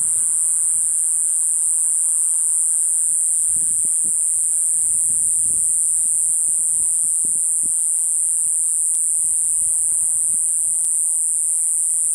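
Steady high-pitched chirring of night insects, unbroken throughout, with irregular low rumbles of wind on the microphone beneath it.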